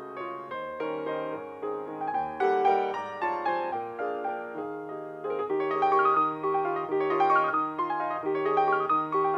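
Solo piano music: a steady run of notes over a low held note, growing louder about halfway through.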